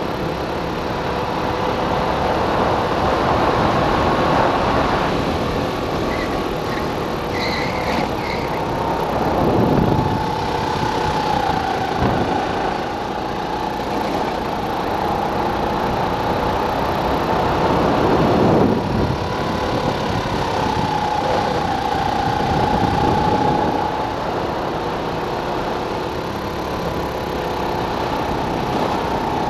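Go-kart engine running hard at speed, its high, steady note wavering slightly up and down as the kart takes the curves. A rushing noise swells over it twice, about ten and nineteen seconds in.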